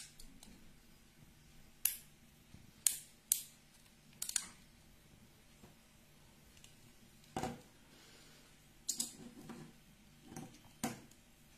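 Sharp clicks and light knocks, about eight at uneven intervals, from a cordless hair clipper's plastic body and length-adjustment lever being handled, with one fuller knock about seven seconds in.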